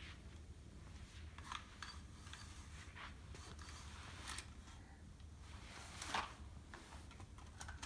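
Faint clicks and scrapes of a plastic toy bulldozer and toy trucks being handled and pushed on a rug, the loudest a longer scrape about six seconds in.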